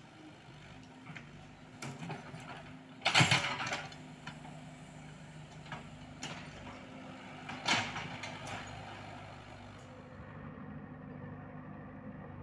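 Komatsu PC78UU mini excavator's diesel engine running steadily while it digs, with a loud burst of scraping noise from the bucket working the soil about three seconds in, another about eight seconds in, and lighter clanks between.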